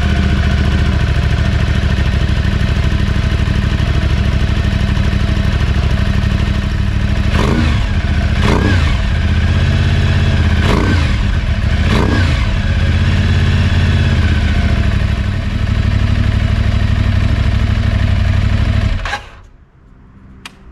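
Aprilia Tuareg 660 parallel-twin idling through an Arrow de-cat stainless racing collector and Indy Race titanium silencer, baffle in. It gives four short, light throttle blips in the middle and cuts off suddenly near the end. Without the catalytic converter the exhaust is quite a bit noisier.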